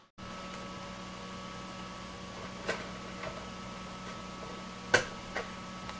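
Steady electrical hum of bench equipment, with a few light clicks and taps as a hand handles the top of a bare DVD drive's metal case; the sharpest click comes about five seconds in.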